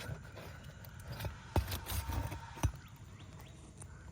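A few sharp knocks and thumps, irregularly spaced, over steady outdoor background noise, with a few faint chirps near the end.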